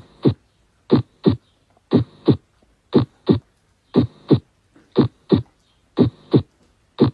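Heartbeat sounds: lub-dub pairs about once a second, the second beat of each pair coming about a third of a second after the first.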